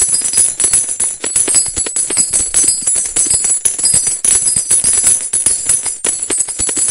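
Large metal coins pouring and falling onto each other in a continuous cascade: dense, rapid clinks with bright metallic ringing, loud throughout.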